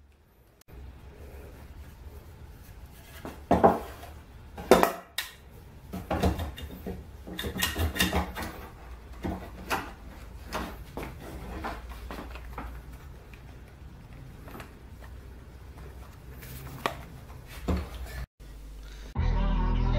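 Workshop handling noise: irregular knocks of wood on a wooden bench and metallic clinks as a board is set in place and a steel bar clamp is slid down and tightened on it. Music starts near the end.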